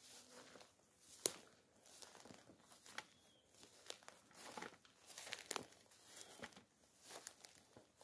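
Footsteps through forest undergrowth: faint, irregular rustling and crackling of leaves and twigs, with one sharper snap about a second in.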